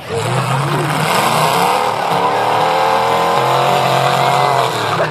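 Demolition derby car engine running loudly, its pitch climbing slowly through the middle and dropping back near the end.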